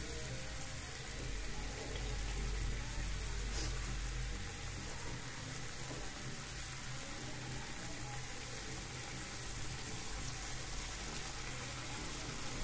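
Spiced yogurt gravy boiling in a pan over a gas flame: a steady bubbling sizzle.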